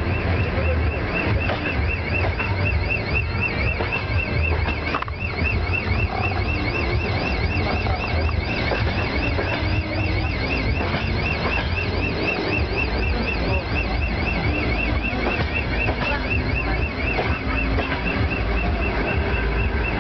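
Steady low rumble of a 2TE116 diesel locomotive's engines idling with a standing passenger train. A fast, continuous high-pitched warble runs over it without a break.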